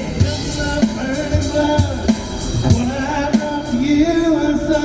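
Live street band playing: singing over acoustic guitars and a drum kit, with a steady beat.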